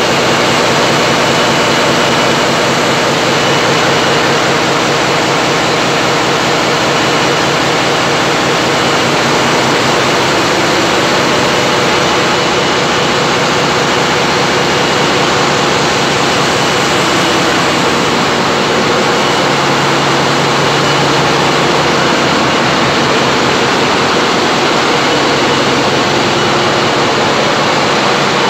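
Loud, steady drone of heavy machinery running in an engine hall, with a fast, even pulsing throughout.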